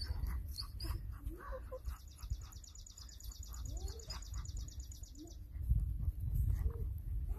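Chickens making a few short, soft clucks while a wild songbird gives one long, rapid trill lasting about three seconds in the middle. A low rumble on the microphone swells near the end.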